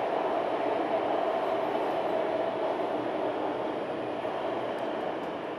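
Shenzhen Metro Line 11 train running at speed, heard from inside the passenger coach: a steady rumble of wheels and running gear with a mid-pitched hum, slowly getting quieter.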